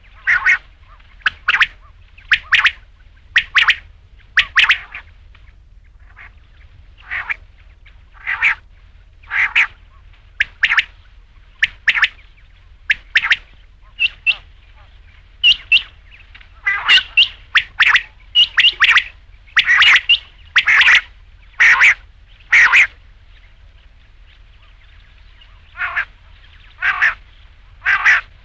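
Quail calling: short, sharp calls repeated about once a second in runs, with brief pauses between runs.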